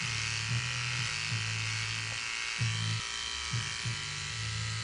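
Corded electric hair clippers buzzing steadily while shaving a woman's head close, the hum swelling and dipping every second or so as the blades are run through the short hair.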